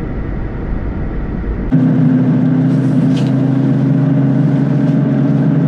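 Car engine and road noise heard inside the cabin while driving slowly. Rumbling at first, it changes abruptly after about two seconds to a steady engine drone with a few faint clicks.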